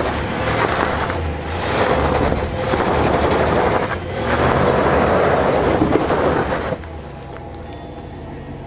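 Chevy Silverado Trail Boss's 5.3-litre V8 revving hard under load while a rear tyre spins on loose dirt and gravel, the noise surging in waves and dropping off sharply about seven seconds in. The wheelspin is one side of the rear axle losing traction in two-wheel drive until the mechanical G80 locker sends power to the other wheel.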